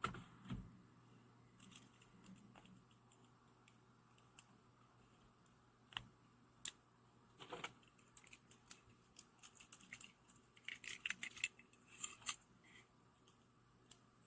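Faint scattered clicks and light taps of a small titanium frame-lock pocket knife being handled, with a run of quick small clicks about eleven to twelve seconds in.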